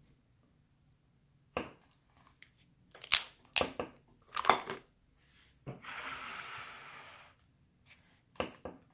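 Cooked snow crab legs being cracked and snapped apart by hand: several sharp shell cracks about a second apart. About six seconds in there is a steady scratchy noise lasting about a second and a half.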